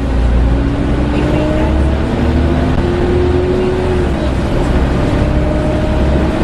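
Volvo B7TL double-decker bus heard from on board while moving, its engine giving a deep, steady drone under the loud whine of its cooling fan, known as 'hoovering'. The whine slides slowly up in pitch, drops back about four seconds in, then starts rising again.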